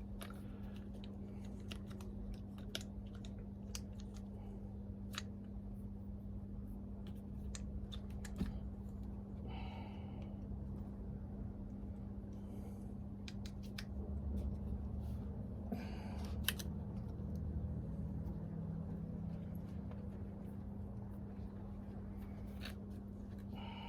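Scattered light clicks and short scrapes of hand tools and small metal parts as a starter motor is taken apart by hand, over a steady low hum.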